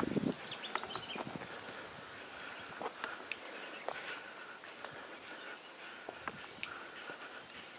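Scattered footsteps and small knocks on rocks and dry brush, over a steady high-pitched chirring of insects.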